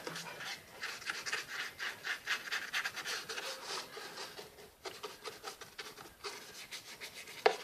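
Paintbrush scrubbing paint onto a cardboard surface in quick, irregular strokes.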